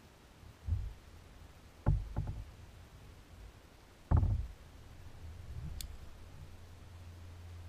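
About four dull, hollow knocks on a small fishing boat as gear is handled, the loudest about four seconds in, followed by a low steady rumble.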